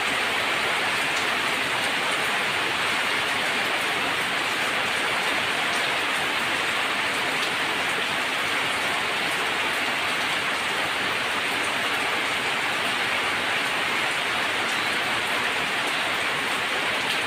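Heavy monsoon rain drumming on corrugated metal roofs and streaming off the eaves in a steady, even hiss, with scattered drop ticks.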